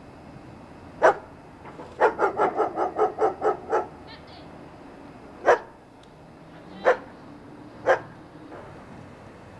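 A dog barking: one bark, then a quick run of about nine barks, then three more single barks a second or so apart.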